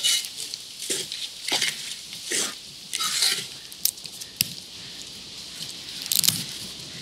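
Wooden spatula stirring and scraping fried chicken in a wide metal pan, a run of scraping strokes through the first half. It is followed by a few sharp clicks, the loudest near the end.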